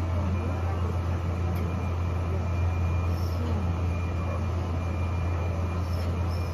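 Restaurant room noise: a steady low hum with faint voices murmuring in the background.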